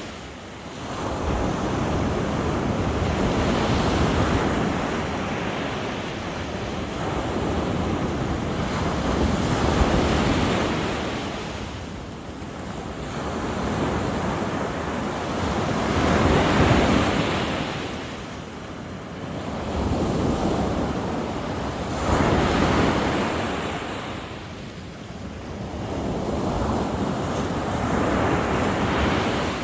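Sea waves breaking on the shore, the surf swelling and falling back about every six seconds.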